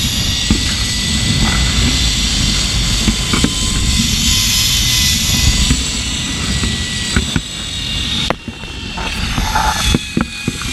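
Zipline trolley running fast along a steel cable: a steady whine from the pulley wheels over heavy wind buffeting on the microphone. About eight seconds in the rush drops away, as the rider slows, and a few sharp knocks follow.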